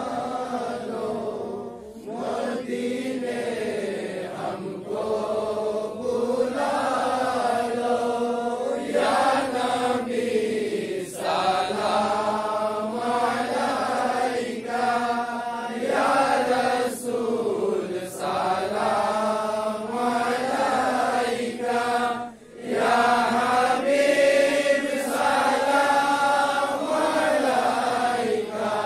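Voices chanting an Islamic devotional recitation together, sung in long rising-and-falling phrases with short breaks between them.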